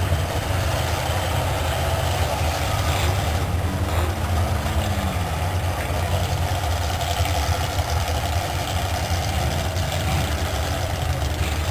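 Lifted full-size pickup truck's engine running at a low, steady drone as it crawls through deep mud on oversized mud tires.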